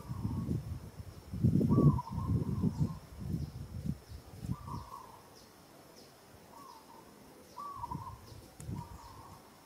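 A bird repeats a short, mid-pitched call every second or two. Loud, irregular low rumbling noise fills the first half and stops about five seconds in.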